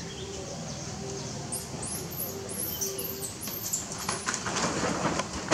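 Infant macaque squeaking: a quick run of short, very high squeaks about halfway through, with a few light scuffling taps near the end.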